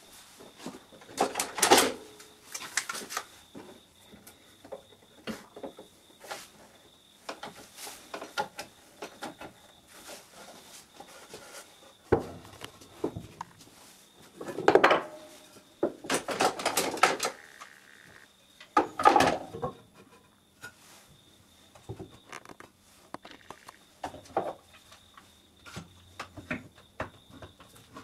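Tasmanian oak workpieces being handled on a workbench: scattered knocks and scrapes of wood on wood, with a few louder clattering bursts as pieces are picked up and set down.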